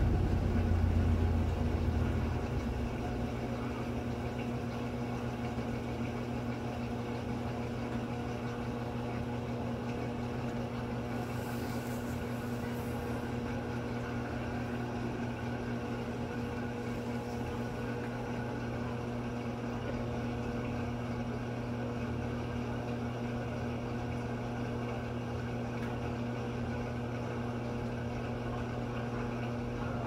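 Electrolux top-loading washing machine on its spin cycle, centrifuging wet sneakers. The motor and drum give a steady hum, with a heavier low rumble in the first two seconds before it settles to an even spin.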